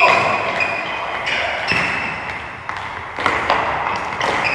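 Soccer balls thudding and bouncing as they are kicked, several knocks a few seconds apart, with short high squeaks and faint children's voices in a reverberant space.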